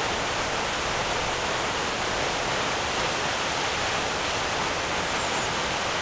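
Aira Force waterfall rushing steadily, an even, unchanging wash of falling water.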